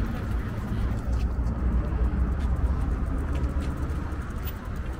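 Outdoor ambience while walking along a paved path: a steady low rumble with a few faint footstep-like clicks.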